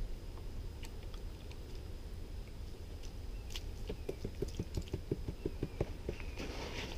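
A quick run of about a dozen light, evenly spaced taps, roughly six a second, over a steady low rumble, followed near the end by a short rush of water.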